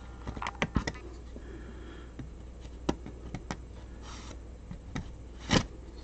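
Hands handling a cardboard shipping box: scattered light taps, clicks and scrapes, a small cluster about half a second in and the loudest single click about five and a half seconds in.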